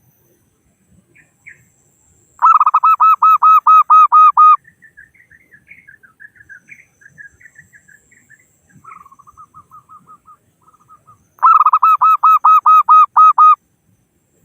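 Zebra dove (perkutut) calling: two loud runs of quick repeated cooing notes, each about two seconds long at roughly five notes a second, with softer scattered chirps between them. A male's call used to draw in rivals.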